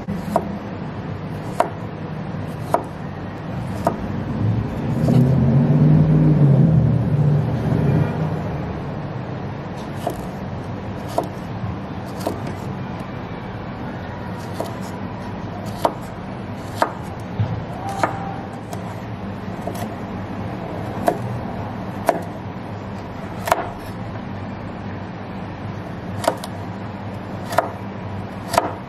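Chef's knife dicing cucumber and carrot on a wooden cutting board: single sharp knocks of the blade striking the board, about one a second. Under them runs a steady background hum, and a few seconds in a low rumble swells and fades while the knocks pause.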